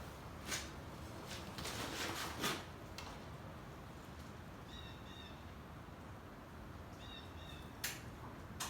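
A bird chirping two short phrases, about five and about seven seconds in, over quiet background, with a few clicks and rustles in the first three seconds and another click near the end.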